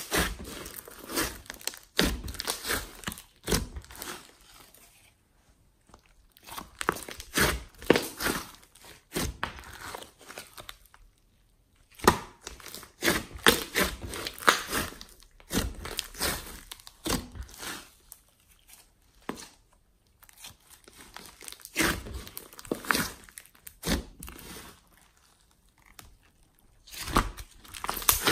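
Thick glossy slime with clay mixed in, pressed, folded and stretched by hand, giving sticky crackling and popping in bursts with short pauses between them.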